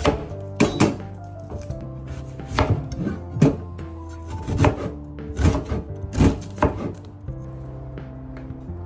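A knife chopping food on a cutting board, a dozen or so irregular strikes that stop about seven seconds in, over background music.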